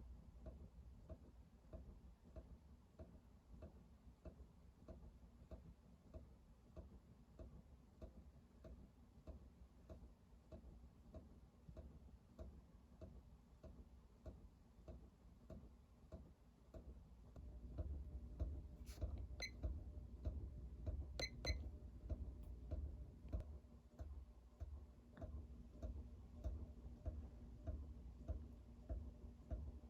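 Kichler Todo ceiling fan running, with a faint, regular tick about twice a second. About 18 s in it gets louder with a stronger low hum, and a few sharp clicks come soon after.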